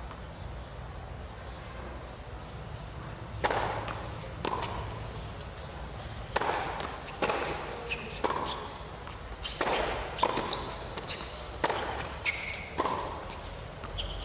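Tennis ball struck back and forth in a doubles rally on a hard court. Sharp pops from rackets and bounces start about three seconds in and come roughly once a second.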